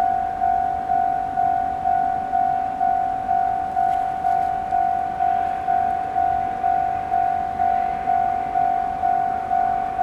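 Japanese railway level-crossing warning bell ringing, a single electronic bell tone struck about twice a second, each strike fading before the next: the crossing is closed for an approaching train.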